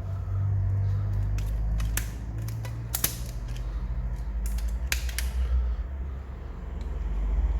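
Scattered sharp clicks and creaks from a phone and small repair tools being handled on a workbench, the loudest about three seconds in, over a steady low rumble.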